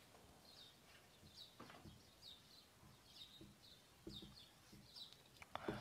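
Near silence, with faint high chirps of small birds in the background and a few soft clicks near the end.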